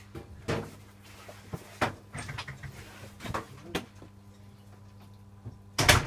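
Hoover Electronic 1100 front-loading washing machine on a wash cycle: a steady low hum with irregular knocks and thuds as the wet laundry turns in the drum. The loudest thud comes near the end.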